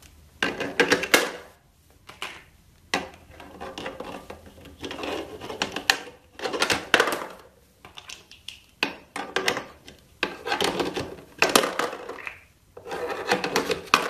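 Plastic shape-sorter blocks clattering and knocking against the toy box as a male Eclectus parrot picks them up and pushes them around with its beak. The knocks and rattles come in irregular bursts with short pauses between.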